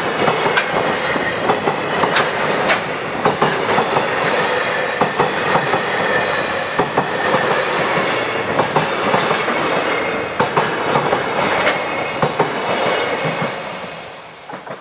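Freight train wagons rolling past, wheels clacking in quick irregular knocks over the rail joints, with a steady squeal from the wheels. The sound fades away over the last two seconds or so as the end of the train goes by.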